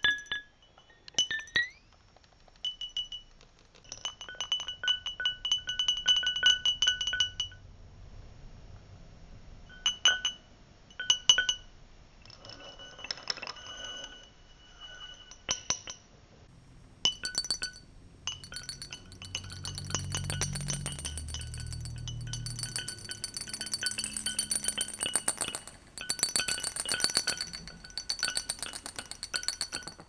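A glass bottle tapped with a stick, its clinks fed live through a granular pitch-shifting effect with delay, so that each clink comes back as a string of ringing, pitch-shifted echoes. The pitch sweeps upward once about a second and a half in. From about two-thirds of the way through, the clinking turns dense and louder, with a low tone under it.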